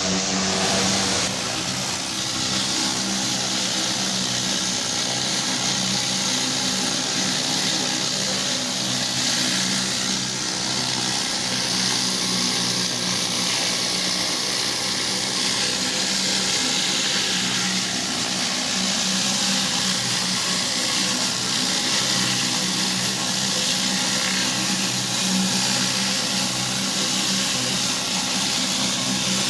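Engine-driven pressure washer running steadily, with the hiss of its high-pressure water spray.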